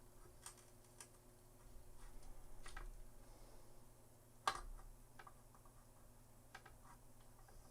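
Faint clicks and taps of hand tools working on a circuit board while a component is desoldered, with one sharper click about four and a half seconds in.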